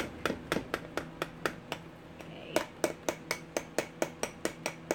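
Quick, even taps of a stick blender's head knocking against the ceramic slow-cooker crock as it is stirred through thick hot-process soap, about four or five a second with a short break near the middle. A low steady hum runs underneath.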